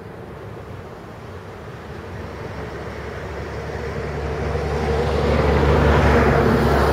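A train rolling past: a low rumble with a rushing noise that grows steadily louder over the second half.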